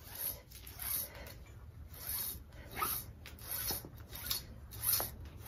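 Rope rubbing as it is pulled through a small sailing pulley block in repeated hand pulls: about seven short, noisy strokes, roughly one a second.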